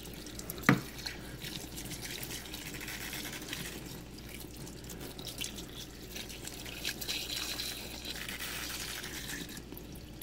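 Tap water running steadily into the tub of a twin tub washing machine as it fills, with one brief knock under a second in.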